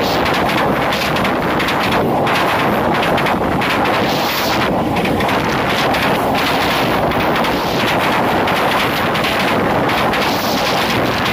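A train passing directly over a microphone lying between the rails: a loud, continuous rumble of steel wheels on the rails, with many sharp knocks and clatter from the running gear overhead.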